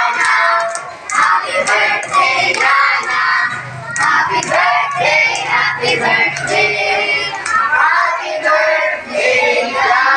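A group of children singing and shouting together.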